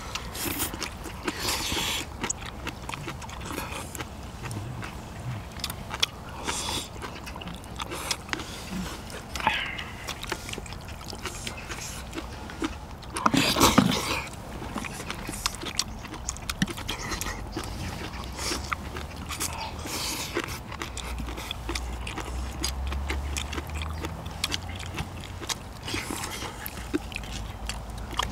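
Several people eating spicy braised seafood: chewing and mouth noises with light clicks of chopsticks on bowls and the metal tray, and one louder burst about halfway through.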